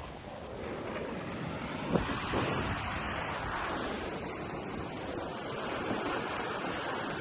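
Ocean waves breaking and washing up on a sandy beach, a steady surf wash that swells and eases, with wind rumbling on the microphone.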